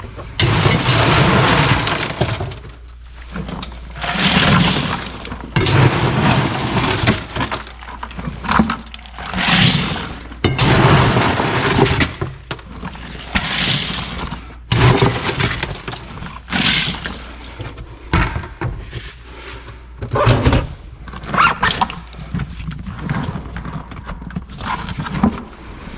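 Ice cubes being poured into a soft-sided cooler over drinks, in a long series of separate clattering rushes, each a second or two long.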